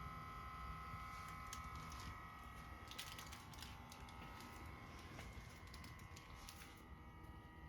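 Faint, steady high-pitched whine from the rear right of a parked 2021 Subaru WRX STI with the ignition off, the lower of its two pitches fading about two seconds in. A run of irregular light clicks comes over it through the middle.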